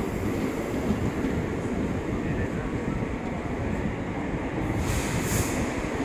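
Indian Railways passenger coach rolling through a station, heard from the coach doorway: a steady rumble of wheels and running gear, with a brief hiss about five seconds in.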